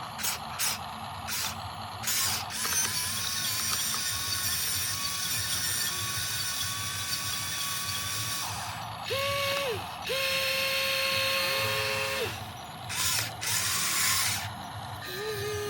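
Electric gear motors of a Huina 1594 RC excavator whining as its functions are worked in turn, each at its own steady pitch, starting and stopping. There are a few sharp clicks near the start and gear noise throughout.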